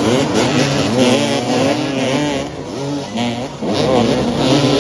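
Several motoball motorcycles revving hard together, engine pitch rising and falling as the riders accelerate and turn, easing briefly midway before surging again.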